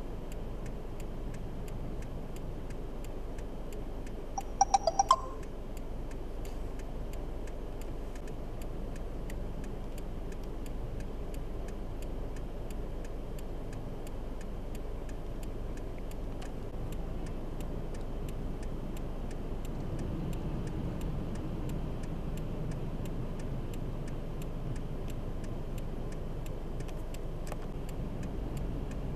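Steady low rumble of a vehicle with a faint, regular clicking throughout, like a vehicle's indicator flasher. About five seconds in there is a quick burst of four loud electronic beeps.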